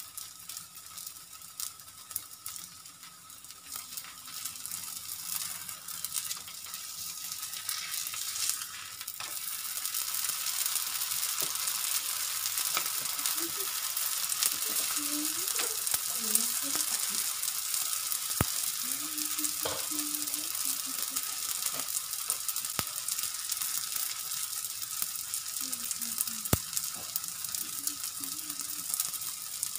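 Oil sizzling under parottas frying on a flat nonstick tawa, with a steady hiss that grows louder about nine seconds in. A few sharp ticks sound over it.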